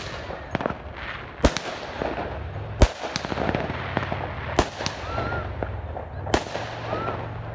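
Consumer fireworks going off outdoors: about five sharp bangs a second or two apart, with scattered smaller pops and crackle between them. A low steady hum runs underneath.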